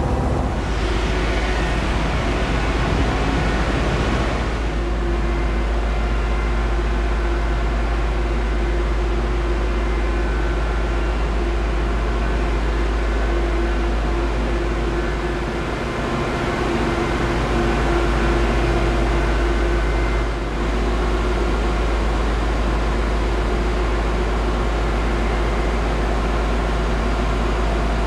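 Steady, loud drone of running engine-room machinery on a cargo ship: separators, pumps and compressors together, with a deep rumble underneath. A steady hum comes in about four seconds in.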